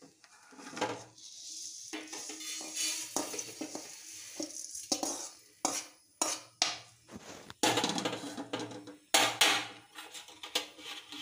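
A steel spoon scrapes dry-roasted coriander seeds around a metal kadai and out onto a steel plate, with the seeds rattling. It is followed by a series of sharp clanks of spoon and pan against metal.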